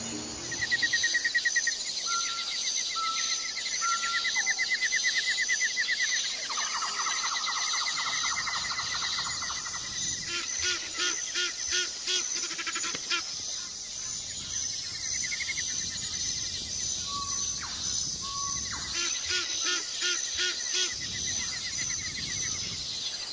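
Nature chorus of wild animal calls: a steady high trilling of insects throughout, with fast pulsed trills and short repeated chirps over it. Two runs of lower pulsed calls come in, one about halfway through and one near the end.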